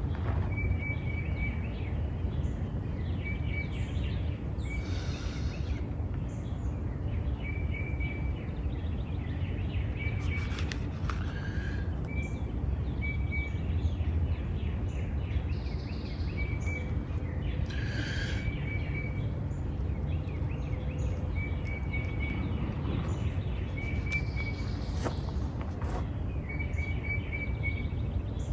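Birds chirping outdoors, one repeating a short high note every second or two, with other scattered calls, over a steady low background rumble.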